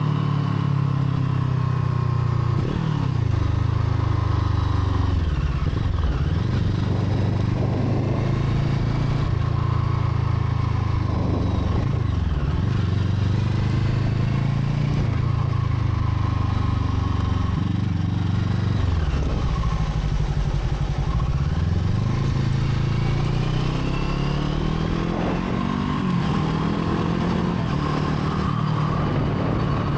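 Brixton Crossfire 500's parallel-twin engine running steadily at a constant pitch, its tone sweeping down and back up briefly several times.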